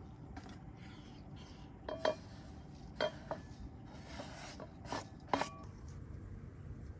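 Four sharp knocks of wood against a blue enamel bowl, each with a brief ring, the last two close together, as a wooden cutting board and spoon tap its rim; light scraping between.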